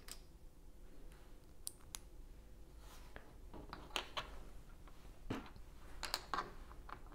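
Small plastic LEGO pieces handled and fitted, giving a scattering of light clicks and taps.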